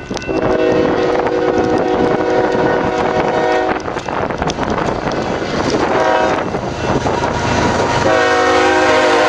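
Freight locomotive's multi-chime air horn: one long blast, a short blast about six seconds in, then another long blast from about eight seconds in. This is the long-short-long close of a grade-crossing signal, heard over the steady rumble of the approaching train.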